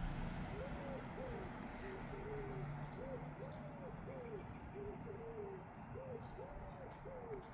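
A bird calling in a rapid run of short, low hooting notes, each rising and falling in pitch, about two or three a second.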